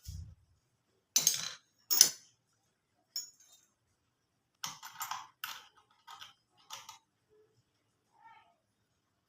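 Sharp clicks and clatters of hard parts being handled during a sewing-machine repair: two loud ones about a second and two seconds in, then a run of quicker clicks midway.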